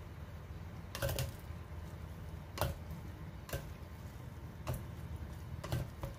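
A spoon knocking and scraping against the inside of a clay pot as cooked rice is stirred, about five sharp clicks at irregular intervals.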